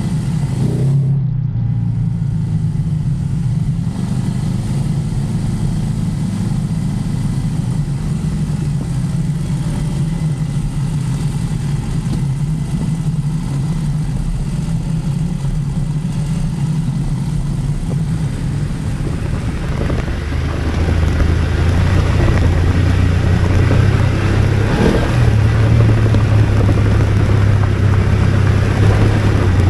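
BMW F 850 GS parallel-twin motorcycle engine running at steady low revs while riding, with a hiss of tyre and wind noise over it. About twenty seconds in, its note drops lower and gets louder.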